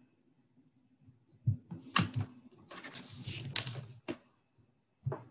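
Computer keyboard tapping at a desk: a few separate key clicks with a short run of rapid typing in the middle.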